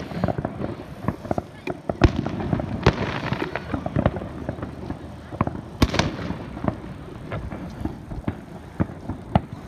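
Fireworks bursting: a string of sharp bangs and crackles, the loudest bangs about 2 s, 3 s and 6 s in.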